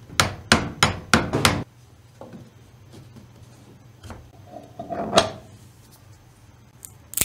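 Plastic parts knocking and rubbing as a 3D-printed end cap is fitted and pressed onto the open end of a PVC pipe fitting: a quick run of about five knocks in the first second and a half, a scrape and knock about five seconds in, and a sharp click near the end.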